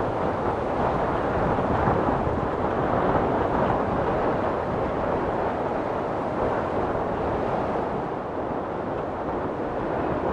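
Wind blowing hard across the open mountainside and buffeting the microphone: a steady rushing noise that swells and eases slightly.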